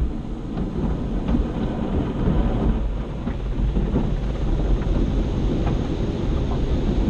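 Tunnel car wash heard from inside the car: a steady low rumble of spray and wash equipment as tri-foam soap is laid across the windshield, with a few faint ticks of water and foam hitting the glass.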